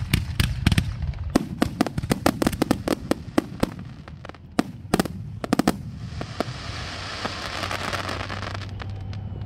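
Aerial firework shells launching and bursting in a rapid, irregular string of bangs for about six seconds, followed by about three seconds of steady rushing noise.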